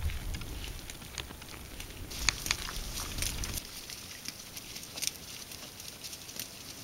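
Caribou feeding on dry reindeer lichen: irregular crisp crackles and snaps as it bites and sorts through the lichen with its mouth. The crackles grow sparser after about three and a half seconds in.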